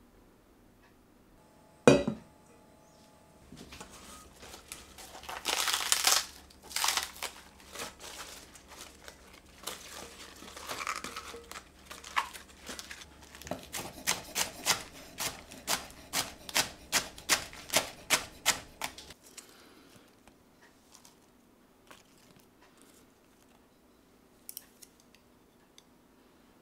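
Chef's knife chopping cos lettuce on a wooden cutting board: crisp crunching and rustling of the leaves, then a quick, even run of chops, about two to three a second, that stops about three-quarters of the way through. A single sharp knock about two seconds in is the loudest sound.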